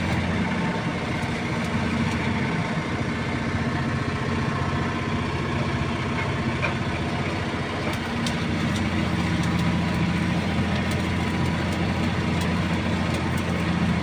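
Engine idling steadily, with a few faint clicks over it.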